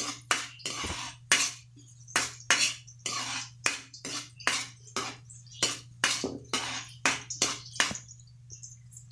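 Metal ladle scraping and knocking against a wok, about two or three strokes a second, as minced garlic, onion and ginger are sautéed in oil. The strokes stop near the end, leaving a steady low hum underneath.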